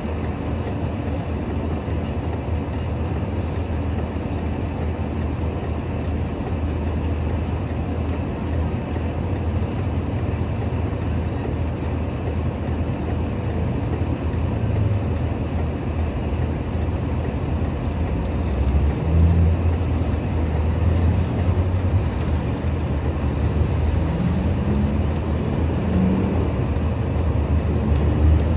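Engine of a compact loader running steadily as a deep low rumble, with brief rises in engine speed about two-thirds of the way through and again a little later.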